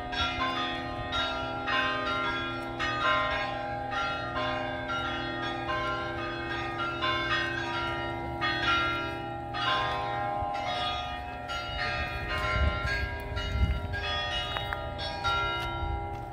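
Church bells pealing, struck one after another at about two strokes a second, their ringing tones overlapping.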